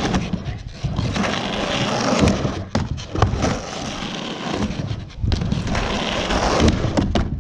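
Skateboard wheels rolling back and forth across a 3-foot mini ramp, the rumble rising and falling with each pass. A few sharp clacks of the board and trucks striking the ramp come in between.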